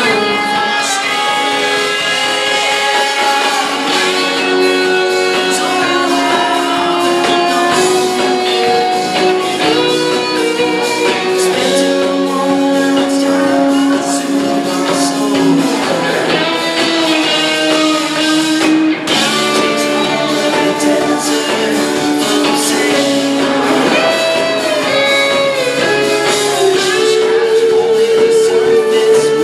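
A live rock band playing, with guitar and singing.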